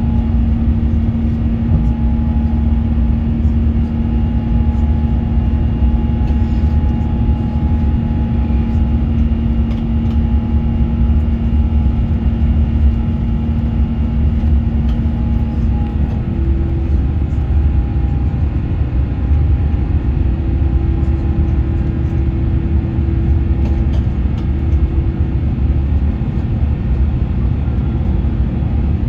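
Airbus A350 engine and airframe noise heard from inside the cabin: a steady low rumble with a steady hum that steps up in pitch about halfway through.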